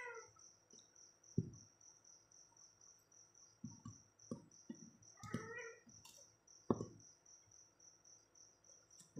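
A cricket chirping steadily at about four chirps a second. A cat meows once, briefly, a little after five seconds in, and a plastic spoon gives a few light clicks against a ceramic bowl.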